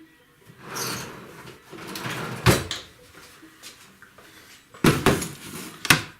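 Rummaging and handling noises: rustling, then several sharp knocks and clunks, one about two and a half seconds in and three close together near the end.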